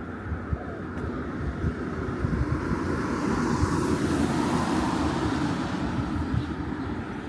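A car passing by: tyre and engine noise swells to its loudest about four seconds in, then fades away.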